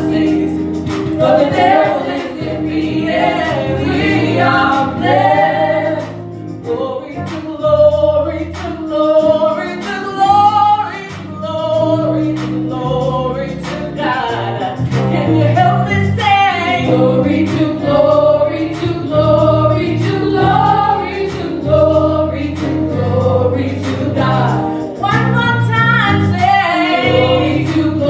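A women's gospel praise team singing in harmony into microphones, over music with a steady beat.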